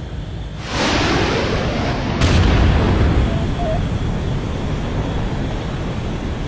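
Rocket motor igniting: a sudden rush of noise about a second in, a sharper, louder blast about two seconds in, then a sustained rumbling noise that slowly eases, over a steady low jet-like rumble.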